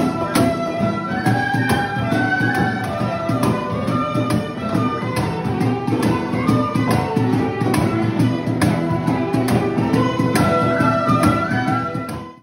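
Live Celtic folk tune played by a small acoustic ensemble: strummed nylon-string guitars and a cajon keep a steady beat under a running melody line. The music fades out near the end.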